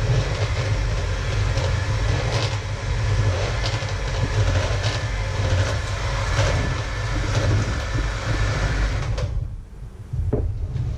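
Handheld electric mixer running steadily while beating a liquid in a plastic jug, with a strong low motor hum and a rattling texture. It stops about nine seconds in, and a short knock follows about a second later.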